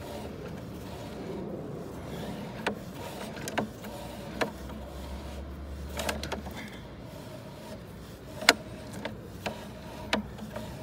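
Sewer inspection camera's push cable being fed down the pipe, with about eight scattered sharp clicks and knocks over a steady low background, the loudest about two-thirds of the way through.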